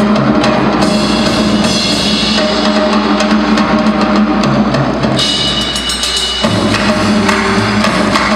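Figure-skating program music with a driving drum-kit beat, played over an arena's loudspeakers. The arrangement changes about five seconds in, when a higher line enters, and again a second or so later, when a low bass part comes in.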